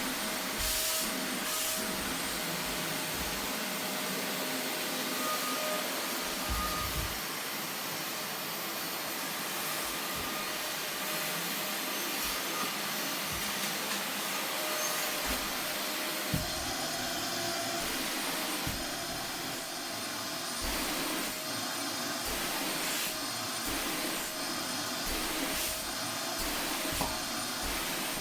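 Vacuum cleaner running steadily while cleaning a sofa, its motor giving a constant whine over the hiss of the suction, with occasional soft low thumps.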